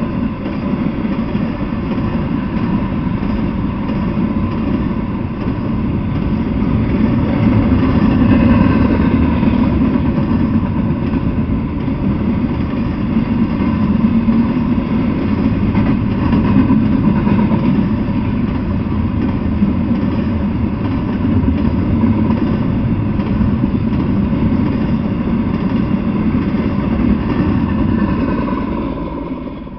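Double-stack intermodal freight train rolling past at speed: a loud, steady rumble of its cars running over the rails, easing off slightly at the very end.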